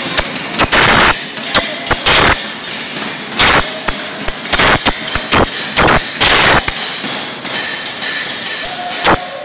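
A hand hammer striking a chisel held on a steel plate: repeated, unevenly spaced blows, roughly two a second.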